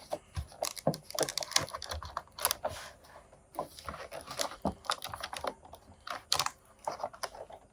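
Cardboard and plastic toy packaging being worked open by hand: an irregular run of small clicks, crinkles and rustles as an action figure is freed from its box.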